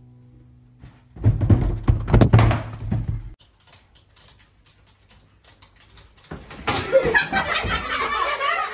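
A loud burst of thuds and knocks lasting about two seconds, then faint keyboard typing, then a louder jumble of knocks and rustling near the end.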